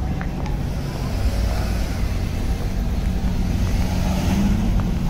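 City street traffic: a car passes close by, its tyre and engine noise swelling and fading, over a steady low rumble.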